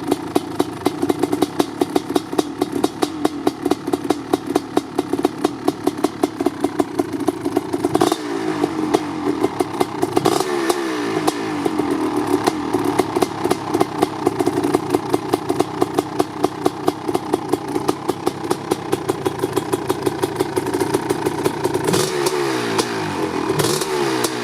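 1988 Kawasaki KX500's single-cylinder two-stroke engine, exhausting through an FMF Fatty pipe and DEP silencer, idling while warming up after a cold start. Its throttle is blipped into short revs about eight seconds in and again near the end.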